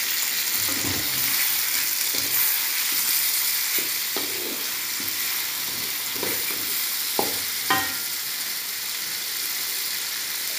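Patin fish steaks and aromatics sizzling steadily in hot oil in a wok, stirred with a wooden spatula that knocks against the pan now and then. One knock about three-quarters of the way in rings briefly.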